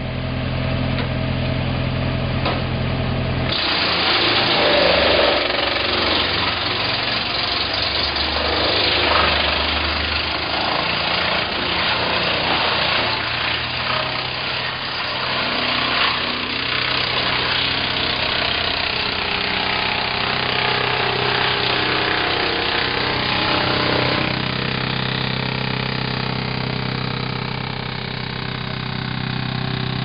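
Tractor-driven Danelander Pro wood chipper running at a steady hum. About three and a half seconds in, it starts chipping a branch and then brush drawn in by its hydraulic feed roller: loud, noisy chipping with many cracks. Near the end this stops and the chipper runs on empty.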